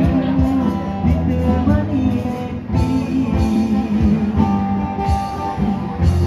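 Live band music: a strummed guitar with other instruments, and a man singing at the start, then a stretch without a voice while the singers lower their microphones.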